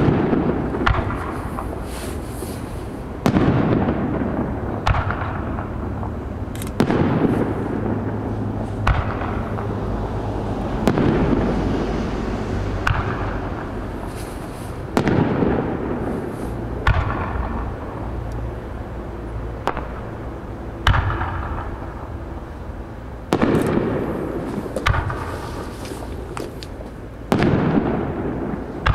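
Aerial firework shells bursting one after another, a sharp bang roughly every two seconds, each followed by a long rolling echo that fades out.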